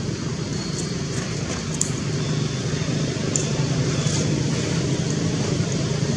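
Steady low hum of engine noise from a vehicle or road traffic. A few faint short high clicks or chirps are heard over it.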